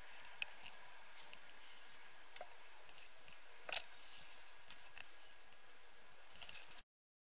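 Quiet room tone with a few faint clicks, the sharpest about three and a half seconds in. The sound then cuts off abruptly near the end.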